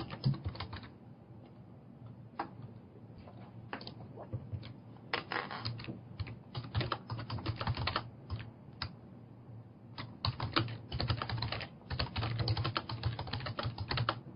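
Typing on a computer keyboard: fast runs of keystrokes with short pauses between them, the clicking thickest in the second half.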